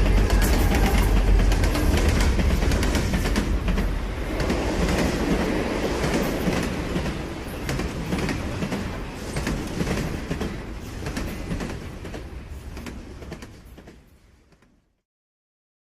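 Train running on rails, a heavy rumble with clattering wheels, fading away near the end.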